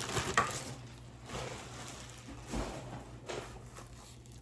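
Packaging rustling and crinkling in a few short bursts, with a small click near the start, as a bag is unwrapped by hand.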